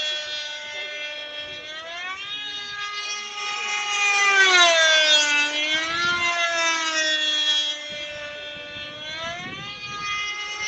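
Radio-controlled model airplane's engine buzzing in flight. Its pitch rises and falls with each pass and throttle change. It is loudest about four to six seconds in, dropping in pitch as the plane goes by, then quieter and rising again near the end.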